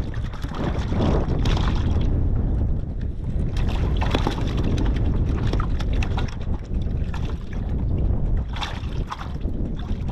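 Wind buffeting the microphone in a steady low rumble, with scattered clicks and rustles of a fishing rod and sabiki rig being handled.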